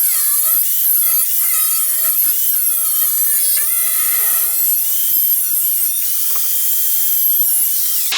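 Angle grinder cutting through a steel bracket: a loud, steady grinding with a high whine that wavers up and down in pitch as the load on the wheel changes.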